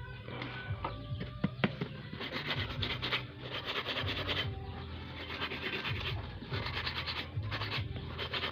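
A Nokia phone's circuit board being scrubbed clean with gasoline: a run of short, rhythmic scratchy strokes, after a few light taps about a second in.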